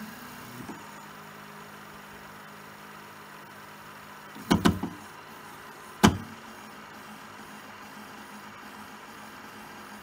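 Prusa SL1S resin printer's tilt mechanism running with a steady hum, broken by a quick cluster of loud knocks about four and a half seconds in and one more sharp knock about a second and a half later: the abnormal noise this printer makes on some prints.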